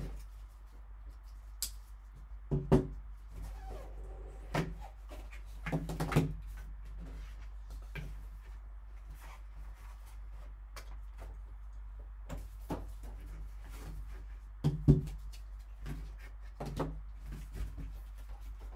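A cardboard card box and its packaging being opened and handled: the lid comes off, cardboard and a card insert slide and tap, and a foam inner box is set down. There are scattered knocks and sharper clicks, the loudest about two and a half seconds in and again near fifteen seconds, over a steady low hum.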